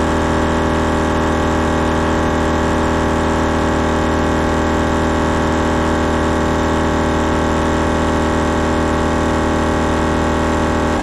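Kings Thumper Max 12-volt digital air compressor running steadily with a constant motor hum, pumping up four tyres at once.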